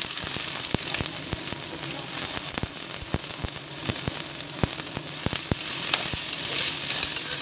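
Sliced onions sizzling in hot oil in a kadhai: a steady frying hiss with scattered sharp crackles and pops.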